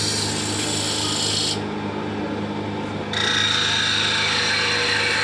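Wood lathe spinning a wooden cup blank while a hand-held turning gouge shaves it: a steady hum under a hissing scrape of the cutting tool. The scrape breaks off for about a second and a half partway through, then starts again.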